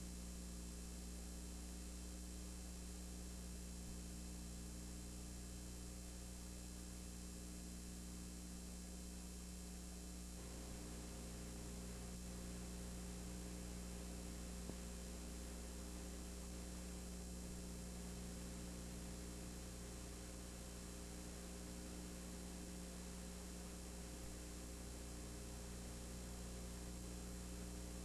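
Steady electrical mains hum with a constant tape hiss and no other sound; the hiss thickens slightly about ten seconds in.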